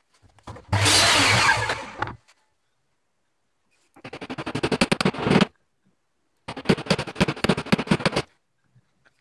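A mitre saw runs for about a second and a half, cutting a wooden strip. Later come two bursts of rapid rattling clicks, each about a second and a half long.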